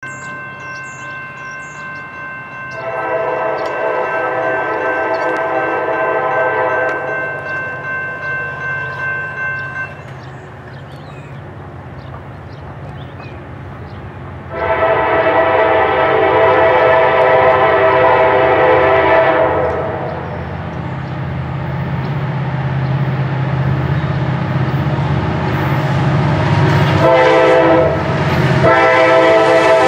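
Air horn of an approaching EMD SD70ACU diesel locomotive sounding in a long, long, short, long sequence, the standard grade-crossing signal. Under it the locomotive's engine and the train rumble, growing louder as it nears.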